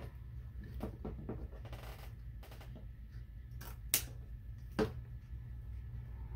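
Scissors snipping ribbon and the ribbon being handled: a run of sharp clicks and short rustles, the loudest snip about four seconds in, over a low steady hum.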